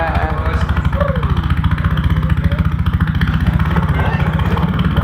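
Beatboxer imitating an idling engine with the voice: a fast, even low putter that runs on steadily, with a short falling vocal glide about a second in.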